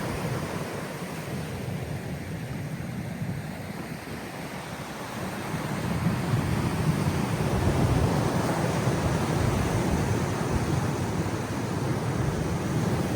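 Large ocean waves surging and breaking on the shore, a steady low rush that swells again about five seconds in, with wind buffeting the microphone.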